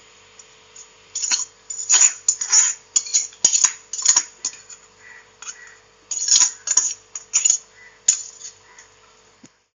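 Metal ladle scooping parboiled rice, scraping and clinking against the metal pot in a quick irregular run of strokes from about a second in until about eight seconds in.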